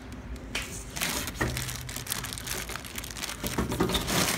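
Clear plastic wrap crinkling irregularly as it is pulled and bunched by hand, starting about half a second in.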